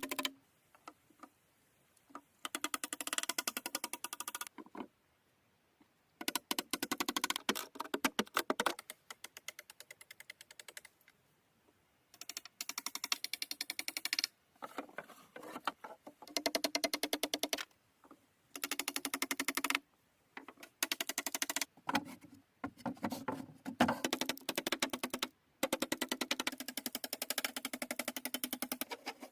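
Rapid runs of tapping or clicking, each burst lasting one to three seconds, with near-silent gaps between them.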